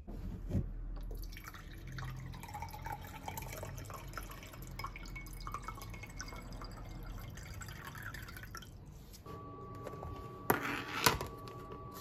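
Water poured from an electric kettle into a drinking glass, a steady splashing stream lasting several seconds. Near the end, two sharp knocks about half a second apart.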